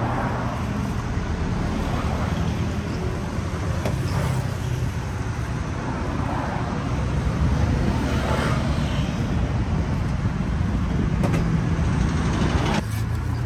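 Steady road traffic noise, with vehicles passing now and then.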